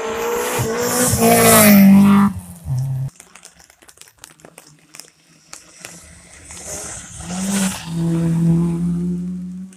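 Rally cars on a wet tarmac stage. First a saloon accelerates hard out of a hairpin, its engine rising in pitch before cutting off abruptly about three seconds in. Near the end a red Citroën hatchback passes close at high revs, its engine holding a steady note.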